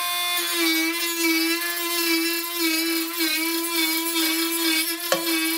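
Dnipro-M MG-12 cordless 12 V rotary tool running at speed with a sanding drum pressed against wood: a steady high motor whine that wavers slightly in pitch under the load. A short click comes near the end.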